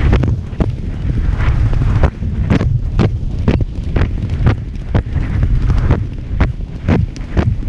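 Heavy wind buffeting a helmet-mounted camera microphone at full gallop. Through it come the racehorse's hoofbeats on turf, a regular beat of about two strides a second.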